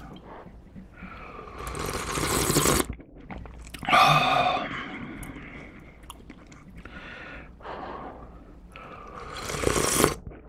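Close-miked eating of chewy instant ramen noodles in spicy broth: a loud slurp of noodles about two seconds in, chewing, and a brief voiced exclamation about four seconds in. Near the end comes a noisy slurp of broth from a spoon.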